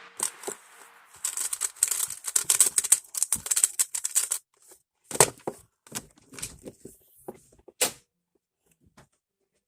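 Rapid clicking and crackling of plastic being handled for a few seconds, then a handful of separate sharp clicks.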